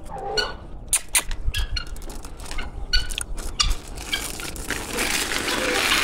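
Heavy metal chain clinking and rattling as it is loosened and handled around a puppy's neck, in many short irregular clinks, turning to a longer scraping rattle near the end as the chain stretches across the concrete.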